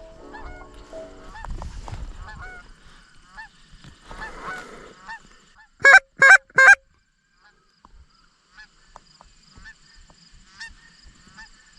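Canada geese honking: many faint calls from a flock throughout, with three loud, close honks in quick succession about six seconds in.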